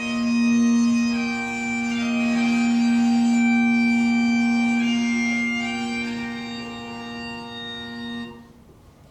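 Bagpipes playing a slow tune over one steady drone. The tune ends and the pipes stop sharply near the end.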